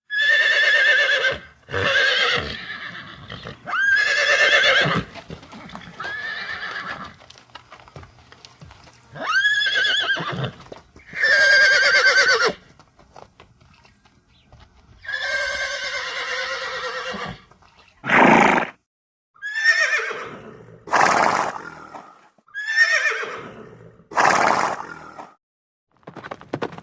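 Horse whinnying and neighing again and again: about a dozen separate calls, one to two seconds each, every one a quavering, high-pitched call with gaps between them. One near the middle runs longer than the rest.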